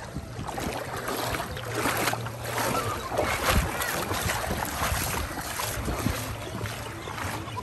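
Beach lagoon ambience: water splashing and lapping with wind noise on the microphone and faint voices.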